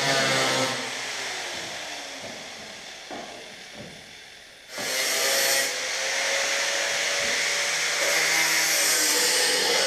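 Handheld grinder with a cut-off wheel cutting the steel sheet metal of a rusty car quarter panel. It lets off and winds down with a falling pitch, then starts again sharply about five seconds in and cuts steadily.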